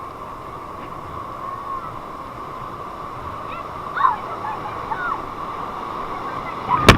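Ocean surf washing steadily on the beach, with a few short chirping calls about four seconds in and a sharp knock just before the end.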